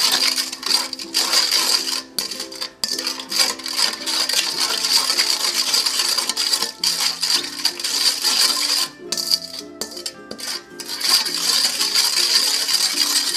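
A red spatula stirring and scraping a thin dressing around a stainless steel bowl: steady metallic scraping with light clinks, breaking off briefly a few times. Background music plays throughout.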